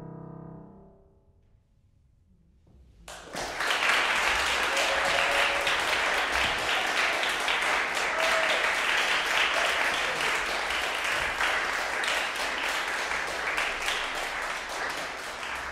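The final chord of a piano, clarinet and violin trio rings away over about a second. A short hush follows, then audience applause breaks out about three seconds in and carries on steadily.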